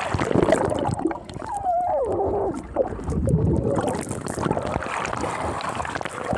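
Pool water splashing and gurgling around a camera held at the surface, dipping in and out of the water, with many small crackles and a brief falling tone about two seconds in.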